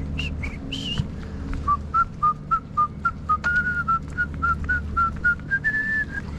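Whistling: a run of short, clear whistled notes, about three or four a second, edging up in pitch and holding one longer note near the end, over a steady low hum.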